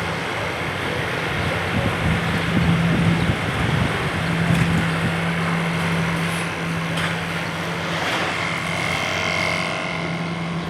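A heavy engine running steadily with a constant low hum, over a wash of street noise.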